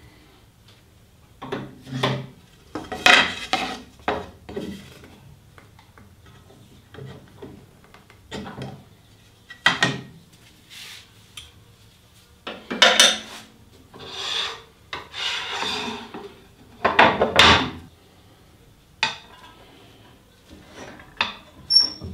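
Irregular knocks, clatters and scrapes of wooden and metal pieces being handled and set down on a table saw's cast-iron top, with a few longer rubbing scrapes in between. Near the end, the saw's throat-plate insert is fitted into the blade opening.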